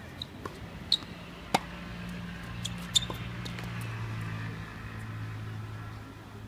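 Tennis ball hit by rackets and bouncing on a hard court: a serve, then a few sharp pops, the loudest about a second and a half and three seconds in. A low steady hum runs underneath.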